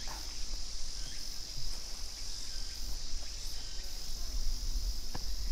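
Steady, high-pitched drone of insects singing in chorus.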